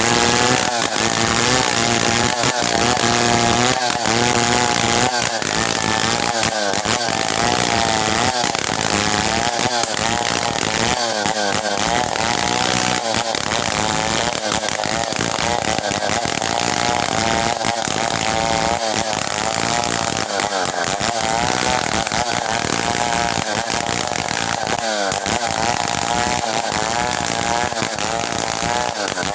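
Stihl 070 two-stroke chainsaw running at high revs, its pitch wavering up and down as it saws through merbau timber.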